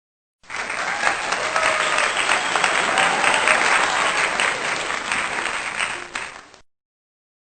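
Crowd applause with faint cheering, a dense clapping haze that cuts in sharply and stops abruptly about six seconds later, like an edited-in applause sound effect.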